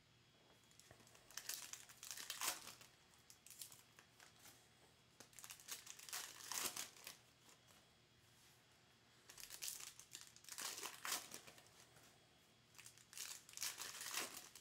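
Foil trading-card packs being handled, crinkled and torn open by hand, in four bursts of crackling a few seconds apart.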